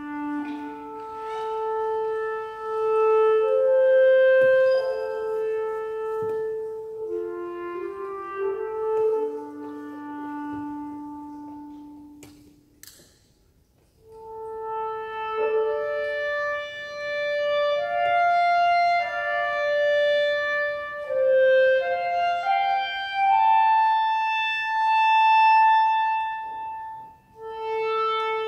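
Solo clarinet playing a slow, unaccompanied melody of long held notes. It breaks off for about two seconds near the middle, where there is a brief click, then resumes mostly higher up.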